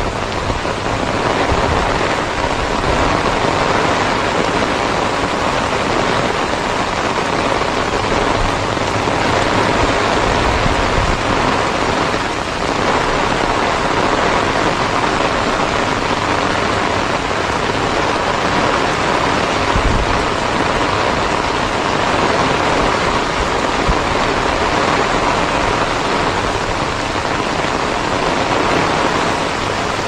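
Heavy rain falling steadily on a wet road and roadside vegetation, a dense even hiss, with occasional low rumbles of wind gusting on the microphone.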